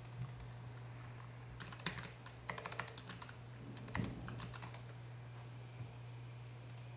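Typing on a computer keyboard: several short runs of keystrokes, with a steady low hum underneath.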